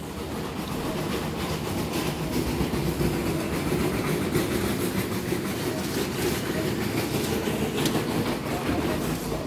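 Shopping trolley rolling over a hard supermarket floor, its wheels rattling steadily.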